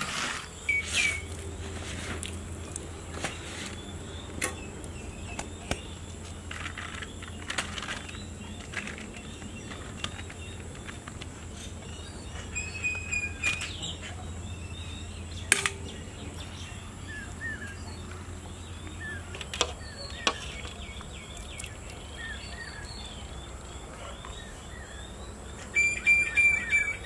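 Birds chirping outdoors, mixed with scattered clinks and taps of steel serving pots and a ladle as rice and fish curry are served onto a banana leaf. A low hum underneath stops about two-thirds of the way through.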